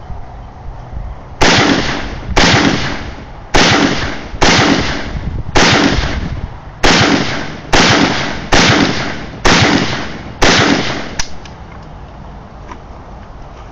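Ten shots from a Zastava PAP AK-pattern rifle, fired about one a second, each with a long echoing tail.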